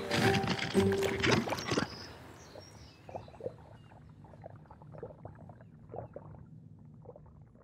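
Background music in the first two seconds. Then a monkey handles the camera up close: its fur rubs and scrapes against the microphone, with irregular soft knocks and clicks.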